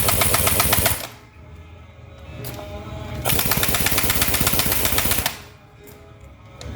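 Impact wrench hammering as it tightens the 30 mm clutch housing cover bolts on a truck transmission. There are two bursts of rapid rattling: the first stops about a second in, and the second runs from about three to five seconds in.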